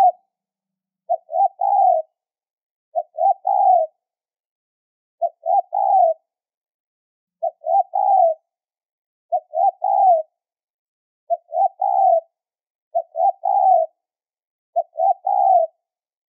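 Spotted dove cooing: a high-pitched three-note phrase, two short notes and a longer final one, repeated about once every two seconds, eight or nine times.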